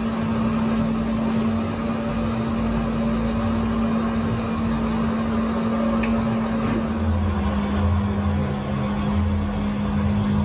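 A motor running steadily with a constant hum, its pitch stepping slightly lower about seven seconds in.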